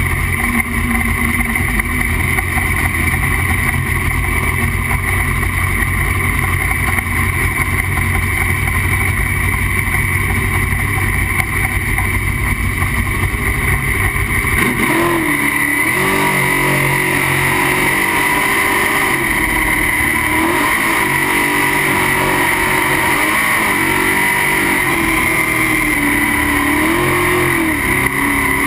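Jet sprint boat's racing engine running hard at speed, heard on board with a low rumble and rush. About halfway through it turns into a clearer engine note that rises and falls again and again as the throttle is worked.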